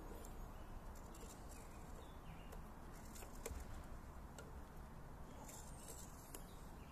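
Faint clicks and scrapes of an RC rock crawler's tires and chassis creeping over rock, over a low steady background hiss. One click, about three and a half seconds in, is plainer than the rest.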